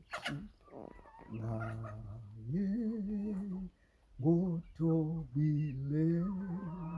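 A man singing a hymn unaccompanied, holding long steady notes and sliding up between them, after a short sharp noise right at the start.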